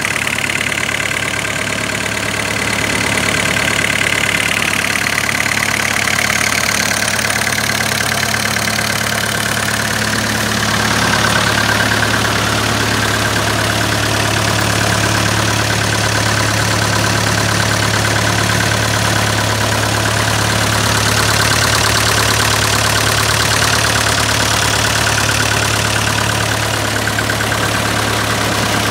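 Old tractor engine idling steadily as it warms up, an even, unchanging running sound.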